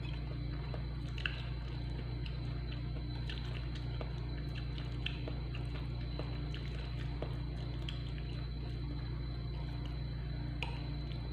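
A metal spoon scoops from a ceramic bowl of rice, with a few sharp clinks about a second in, around five seconds in and near the end, among small soft eating and chewing sounds. A steady low hum runs underneath.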